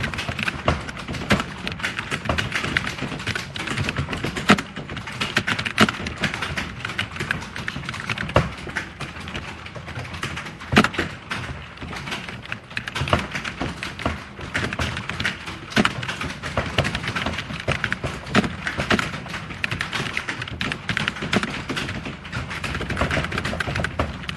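Fast, continuous typing on a computer keyboard: a dense run of key clicks, several a second, with occasional louder key strikes.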